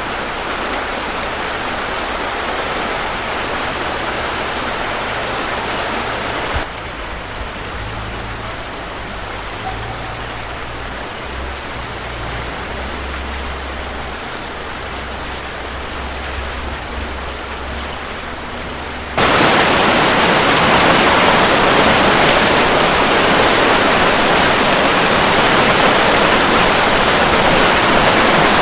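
Rushing water of a flood-swollen creek, a steady noise that changes level abruptly twice. It is loudest and fullest in the last third, where the water pours through as white-water rapids.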